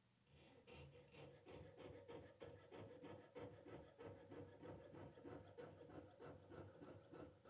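Jeweler's saw cutting metal stock clamped in a bench vise, with faint, even back-and-forth strokes about three a second that stop shortly before the end.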